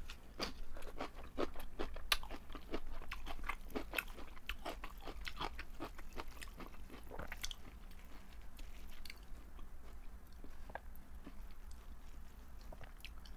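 Close-up chewing of crisp napa cabbage kimchi: dense, crisp crunches for the first seven seconds or so, then fewer, fainter ones.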